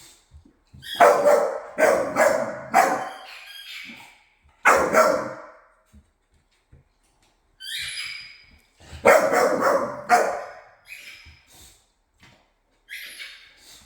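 Dogs barking in short loud bursts: a quick run of three barks about a second in, single barks near five and eight seconds, another run of barks around nine to ten seconds, and fainter barks near the end.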